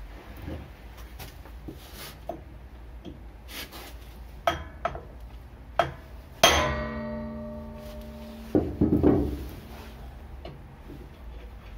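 A single hard strike on a brass drift held against the flywheel hub of a Lifan 177F 9 hp engine, knocking the flywheel loose from its tapered crankshaft seat; the struck flywheel rings on for about two seconds. A few light metal taps come before the strike, and a short metallic rattle follows it.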